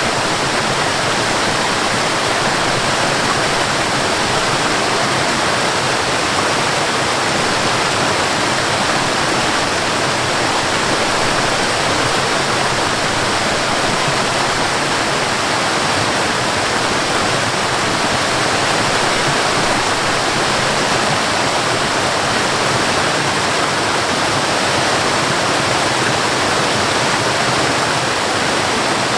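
Rushing water, a steady, unbroken loud hiss like a waterfall or fast stream.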